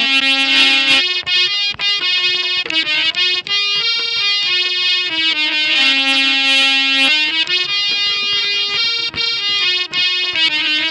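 Harmonium playing a Sindhi folk melody in quickly changing reedy notes, a few held longer, with a dholak hand drum beating out the rhythm underneath.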